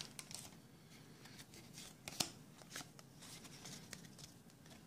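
Faint handling of Pokémon trading cards taken from a booster pack and flicked through in the hands, with a few light ticks, the sharpest a little past two seconds in.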